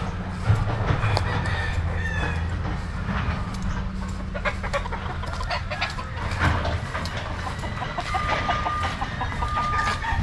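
Several gamefowl cocks and stags crowing and clucking, one call after another, with a steady low rumble underneath.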